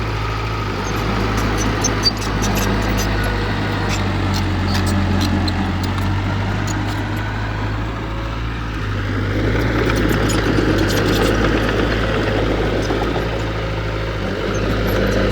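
Heavy diesel engine of earthmoving equipment running steadily, easing off slightly about eight seconds in and building up again a couple of seconds later.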